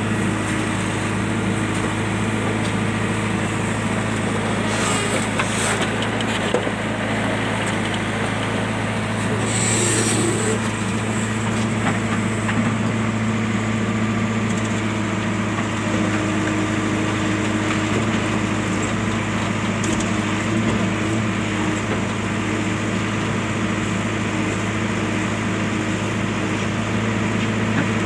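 A JCB machine's diesel engine running steadily at an even speed, with brief hissing about five and ten seconds in.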